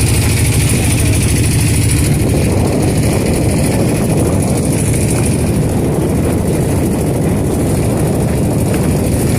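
An engine running steadily, a loud, even low rumble with no change in pace.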